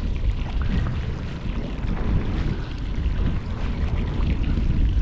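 Strong wind buffeting the microphone: a loud, steady low rumble that flutters with the gusts.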